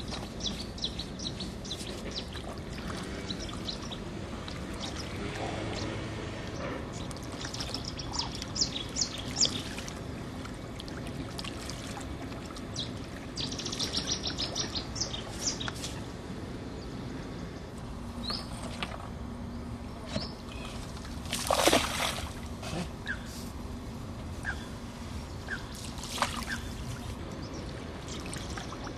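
Outdoor waterside ambience: small birds chirping on and off over a steady water-like rushing noise, with one louder, falling sound about two-thirds of the way through.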